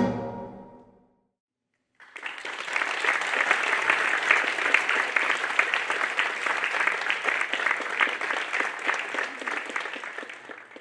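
The last struck chord of the marimbas rings out and fades within the first second. About two seconds in, an audience starts applauding, steady at first and thinning out toward the end.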